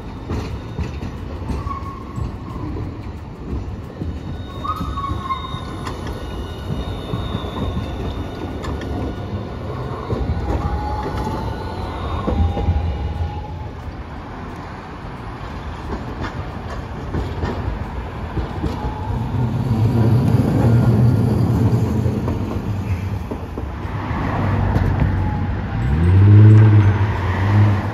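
Articulated low-floor streetcar rolling round a sharp street curve, its wheels squealing in thin, wavering high tones over a low rumble for the first dozen seconds. Near the end a car accelerates past with a rising engine note, the loudest sound.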